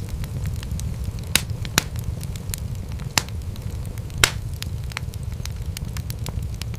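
Wood fire crackling: a steady low rumble of flames with scattered sharp pops, a few louder snaps standing out about one and a half, three and four seconds in.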